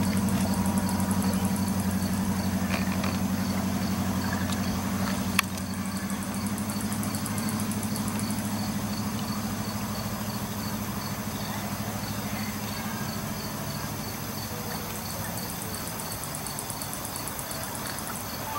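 An engine running steadily with a low, even throb that slowly grows quieter, with a single sharp click about five seconds in.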